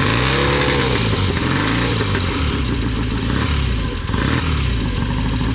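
Motorcycle engine running and being revved about three times, each blip rising and falling back in pitch.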